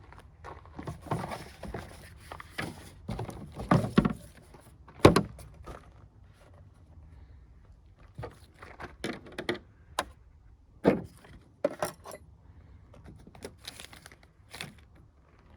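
Irregular clatter of hard objects being handled: clicks and knocks, loudest about 4 and 5 seconds in.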